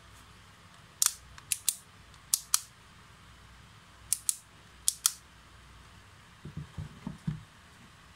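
About ten sharp plastic clicks, mostly in quick pairs, from the red clutch (torque-setting) collar of a ZGO 16 V cordless drill being turned and pressed into place over the gearbox. Near the end come a few dull knocks as the drill body is handled on the wooden bench.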